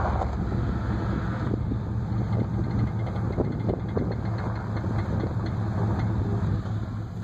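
1994 Chevy Silverado pickup engine idling steadily, with a few light scattered ticks over the hum.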